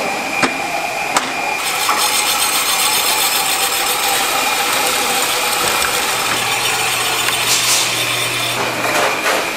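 Electric-motor-driven cutting machine running steadily with a constant whine, as a slab of peanut rice puff candy is rolled through its blades. There are two sharp clicks in the first second and a half, the noise grows louder about a second and a half in, and a low hum joins about six seconds in.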